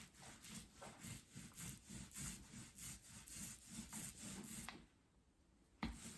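Primer being applied to a wooden door panel in quick back-and-forth strokes, about three a second, with a soft rubbing sound. The strokes pause briefly near the end, a single knock sounds, and the stroking resumes.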